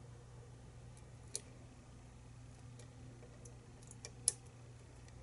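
Lock pick working the pins of a pinned challenge lock, giving a few faint, sparse metallic clicks, the sharpest about a second in and again near the end, over a steady low hum.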